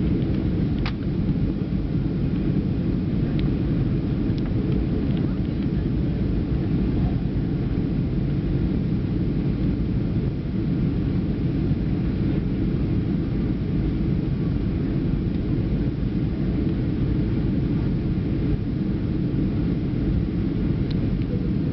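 Steady low rumble of an airplane's engines and rushing air heard inside the passenger cabin, with a few faint ticks.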